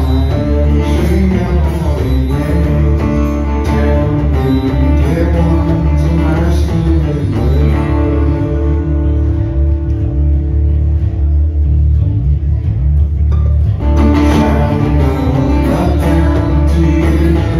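Live acoustic rock band: a strummed acoustic guitar and cellos under a male lead vocal. The singing drops out for a few seconds in the middle while a low note is held, then comes back.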